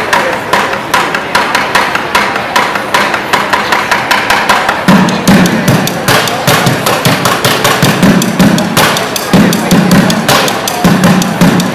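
Plastic buckets played as drums with wooden drumsticks: a fast, dense run of sharp hits, with lower, heavier strikes coming in short groups from about five seconds in.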